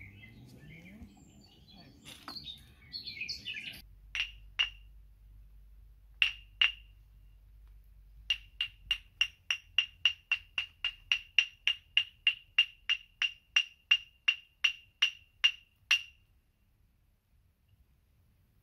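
A small, high-pitched handheld percussion instrument struck, each note bright and quickly fading: two pairs of strikes, then a steady run of about three strikes a second that stops a little before the end.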